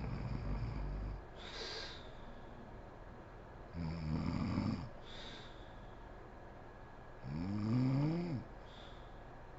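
A woman snoring in her sleep: three snores about three and a half seconds apart, each followed by a short hiss of breath. The last snore rises and then falls in pitch.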